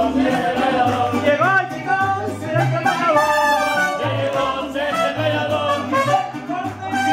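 Live mariachi band playing: a man singing into a microphone over violins and trumpets, with a bass line moving in steady rhythmic steps underneath.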